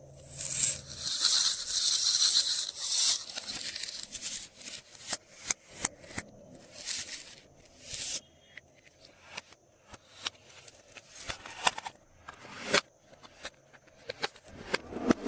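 Crinkling, tearing packaging for about three seconds, then a long run of sharp clicks and short rustles as it is handled.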